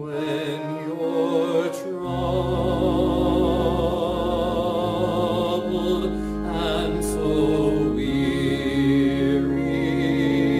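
Sung music with a held bass accompaniment: voices sing long notes with vibrato over sustained low notes.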